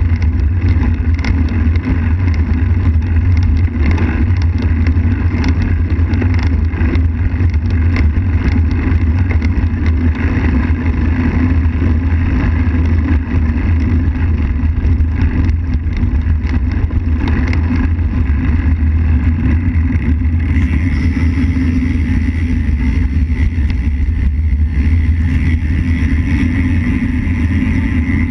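Steady low wind rumble on the microphone of a camera mounted on a moving road bike, with scattered clicks and knocks through the first part.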